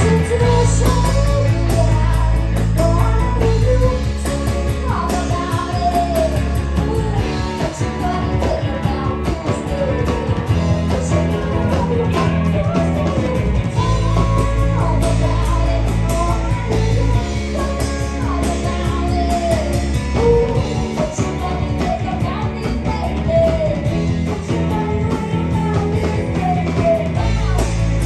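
Live rock band playing: electric guitars, bass guitar and drum kit, with a bending melody line over the top and the bass shifting note every few seconds.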